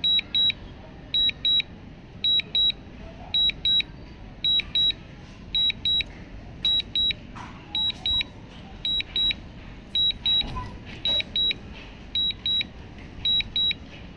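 DJI drone remote controller giving its return-to-home warning: a high double beep repeating about once a second, sounding while the drone flies home automatically on low battery.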